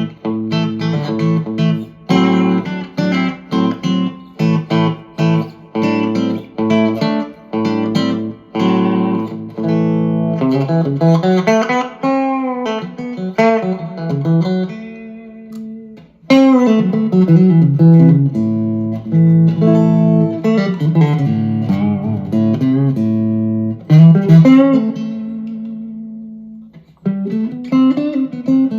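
Harley Benton TE-62CC Telecaster-style electric guitar played through an amplifier. It plays picked licks and chords with several string bends. The playing drops off briefly twice, about midway and near the end, before picking up again.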